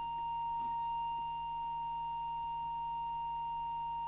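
Steady, unwavering test tone from an audio oscillator, fed into a CB transmitter's microphone while its FM deviation is being set.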